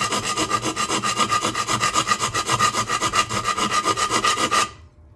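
Hand file rasping with quick back-and-forth strokes at the edge of a freshly drilled hole in a Presto pot's housing, clearing the part of the hole the drill left uncut. The scraping stops abruptly near the end.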